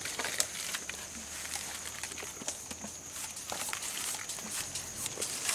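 Steady high-pitched insect drone of crickets or cicadas, with scattered clicks, rustles and footsteps over the top.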